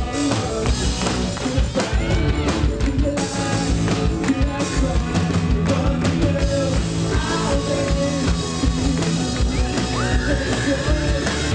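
Rock band music with a drum kit and singing.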